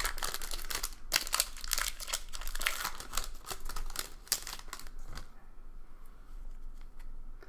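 Trading card pack wrapper being torn open and crinkled in the hands: dense, rapid crackling that dies down about five seconds in.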